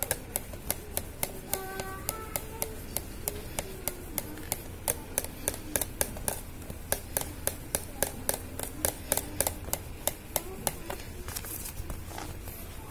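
A fingertip rubbing Autosol polish in small circles on a scratched clear plastic cover, the plastic ticking sharply about four times a second with each stroke. The ticking stops near the end.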